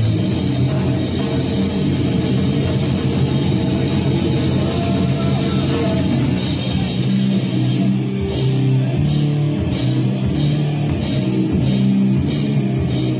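A rock band playing live: distorted electric guitar over a drum kit, with sharp drum hits landing about twice a second from about halfway through.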